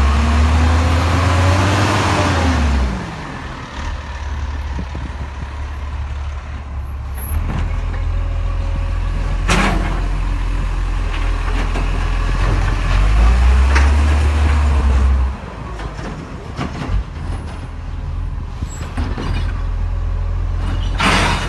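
Side-loader recycling truck's diesel engine running, revving up twice for a few seconds as the hydraulic bin-lifting arm works, the pitch rising and falling each time. Two short sharp bursts, one about midway and one near the end.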